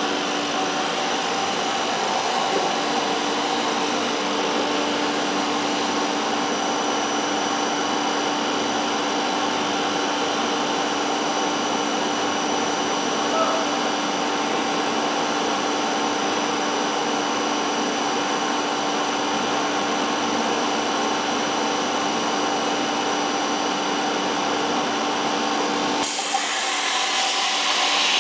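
PVC foam board production line running: a steady machine drone with a constant hum and several higher whining tones. About two seconds before the end the low drone drops out and a brighter, hissing rasp takes over.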